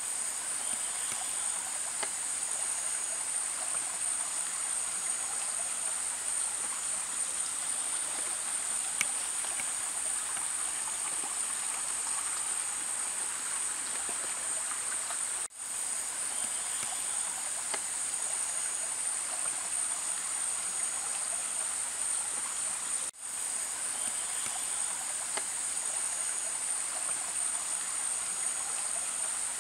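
Shallow stream running over stones, with a steady high-pitched drone of insects over it. The whole sound cuts out for an instant twice.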